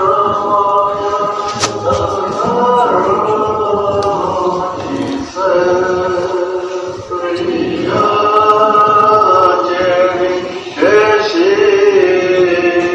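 An Orthodox priest singing church chant in long, held phrases, with short breaks between phrases about 5, 7 and 11 seconds in.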